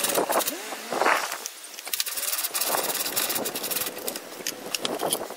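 Ratchet wrench clicking in rapid runs while loosening the 10 mm bolts that hold the air intake inlet, with small knocks from the plastic parts.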